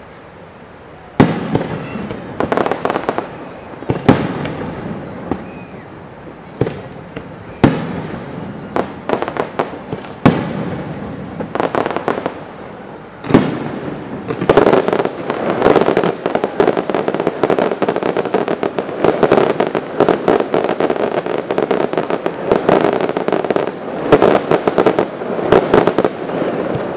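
Aerial firework shells bursting: a few sharp bangs spaced a few seconds apart, then from about halfway a dense barrage of rapid bangs and crackles.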